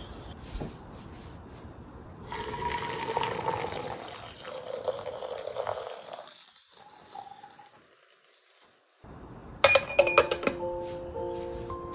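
Water poured from a kettle into a glass teapot of loose tea, a splashing pour whose pitch rises as the pot fills, ending about six seconds in. Near the end the glass lid clinks sharply onto the teapot a few times, the loudest sound, and then soft background music with plucked notes begins.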